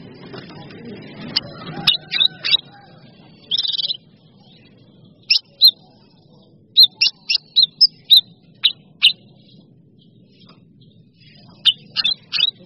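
Songbird calling in short, sharp high chirps that come in clusters: a few about two seconds in, a brief buzzy trill, then a quick run of about eight notes in the middle and another cluster near the end.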